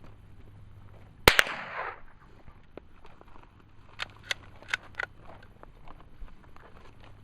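A single gunshot about a second in, loud and sharp with a short echoing tail. A few much fainter sharp cracks follow in quick succession a few seconds later.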